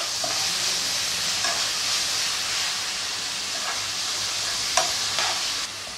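Chopped tomatoes and onions sizzling steadily in oil in a kadai as they sauté, with a few faint scrapes of the spoon stirring them. The sizzle drops a little near the end.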